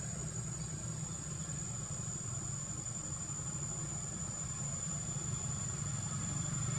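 Motorbike engine running with a steady low hum, slowly growing louder toward the end as it approaches. A thin, steady high-pitched whine sits above it throughout.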